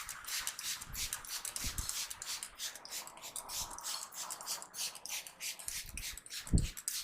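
Hands rubbing, scratching and patting quickly over a person's scalp and hair during a barber's head massage. There is a dull thump about two seconds in and a louder one near the end.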